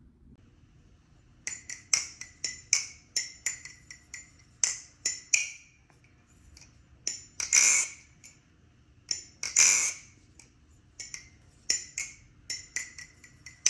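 Reassembled balisong (butterfly knife) being flipped: an irregular string of sharp metallic clicks and clacks as the handles swing closed, each one ringing briefly. Two longer, louder clatters come a little past the middle.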